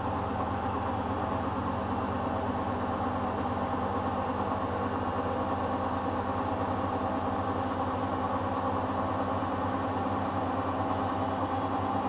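Hoover Dynamic front-loading washing machine spinning a load of cloth mats: a steady drum-and-motor hum with thin high whines that slowly rise in pitch.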